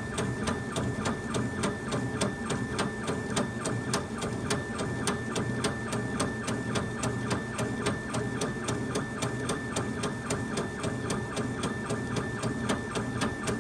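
Laser engraver raster-engraving a wood faceplate: its stepper-driven head runs back and forth with a steady high whine and a regular click at each pass, about four or five a second.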